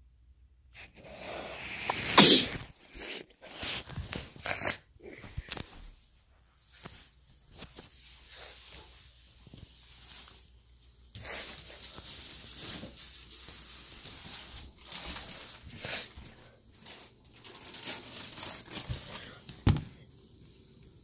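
Irregular rustling and brushing bursts of handling noise, as the phone's microphone rubs close against a cat's fur, starting about a second in.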